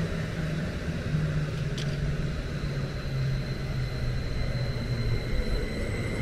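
A eurobahn electric multiple unit rolling past on the adjacent track: a steady rumble with a low electric motor hum that falls slightly in pitch. A single faint click comes about two seconds in.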